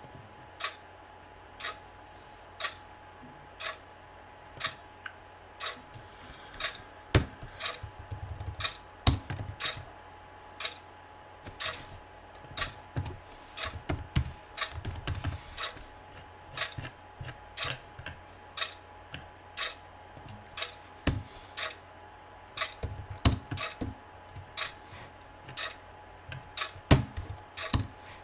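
Clock ticking steadily about once a second, joined from about six seconds in by bursts of computer keyboard typing and a few louder, sharp clicks.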